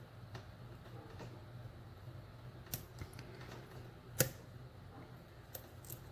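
Faint metallic clicks and scrapes of a hook pick and tension wrench working the pins inside a Euro-profile cylinder padlock, feeling for a stubborn pin that will not set. About seven scattered clicks, one sharper than the rest a little past the middle.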